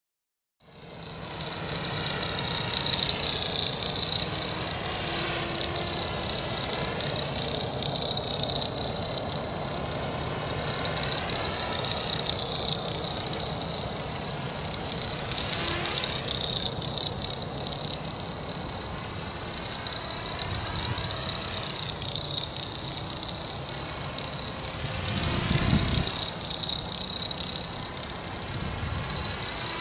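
Accurate 400 RC helicopter hovering: motor and rotors running with a steady high whine that drifts slowly up and down in pitch, starting suddenly just after the beginning. It runs with an abnormal noise and vibration left by a crash.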